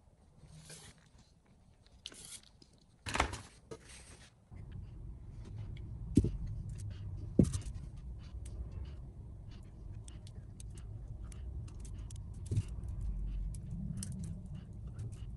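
Scraping and rustling handling sounds from unmolding salt-crystal soap. From about four seconds in a steady low hum sets in, under sharp clicks and small taps, with two louder clicks a second apart.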